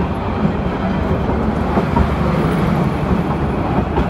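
Passenger train running, a steady low rumble and rattle of the moving carriages.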